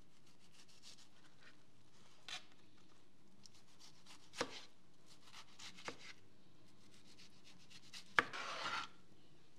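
Chef's knife cutting a tomato on a plastic cutting board: quiet slicing strokes with a few sharp taps of the blade on the board, the loudest about eight seconds in, followed by a short scraping stroke.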